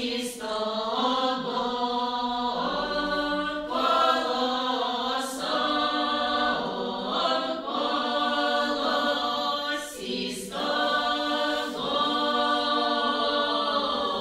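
Women's folk ensemble singing a cappella in Russian village style: several voices in close harmony over a steady low held line, in long held phrases with short breaks for breath.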